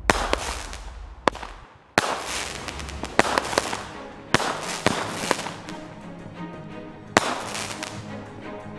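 Consumer fireworks going off: a string of sharp bangs a second or so apart, each trailing off in a fading hiss, with music underneath.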